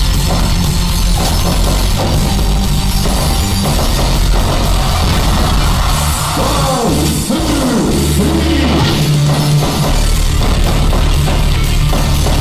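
Loud rock music with a driving drum beat, with a few falling, sweeping tones about halfway through.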